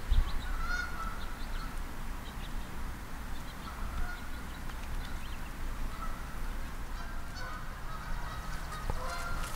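Geese honking off and on in short, scattered calls, over a steady low rumble.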